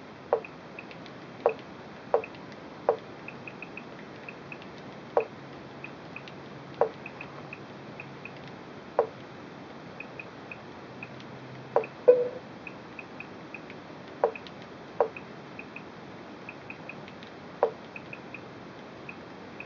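Apple TV on-screen keyboard interface sounds while a password is entered with the remote: runs of quick faint ticks as the highlight steps across the letters, and about a dozen sharper clicks, one per character selected, spaced irregularly, with a double click about twelve seconds in.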